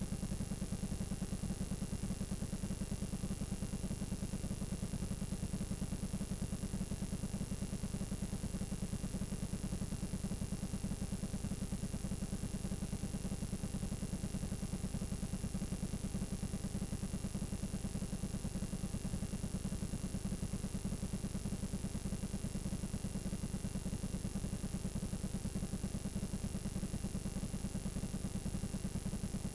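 Blank VHS tape playing back: steady static hiss over a low buzz, with a faint high whine, unchanging throughout.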